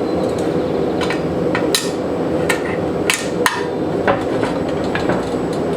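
Blacksmith's hammer striking hot flat bar steel on an anvil, about ten irregular ringing blows, shaping the bar to a curve a little at a time. A steady background roar runs underneath.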